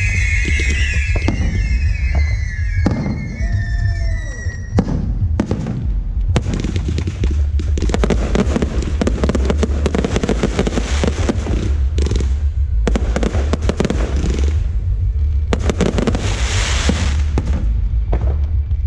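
Aerial fireworks show: at first background music with a wavering melody carries, then from about five seconds in a dense run of shell bursts and crackling takes over.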